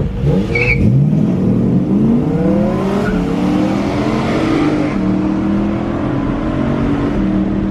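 Car engine accelerating hard from a standstill at full throttle, its revs climbing in several rising sweeps and then holding a steady drone, heard from inside the cabin.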